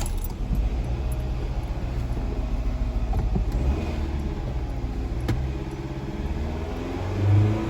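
Fiat 500 petrol engine catching and idling unevenly with a steady low rumble, a misfire (random/multiple-cylinder misfire code) caused by the tank having been filled with diesel.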